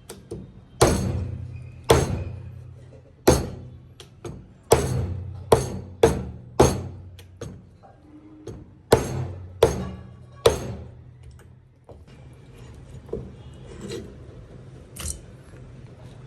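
About a dozen heavy knocks at irregular spacing, each ringing away for a moment, over a low steady hum; the knocks stop about two thirds of the way through.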